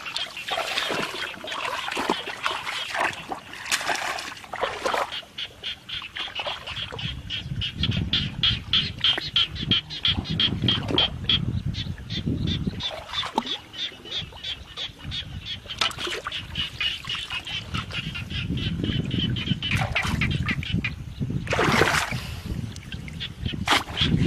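Water sloshing and splashing as a person wades through a shallow flooded paddy and handles a bamboo fish trap, with a fast run of short, repeated high animal calls, several a second, until near the end.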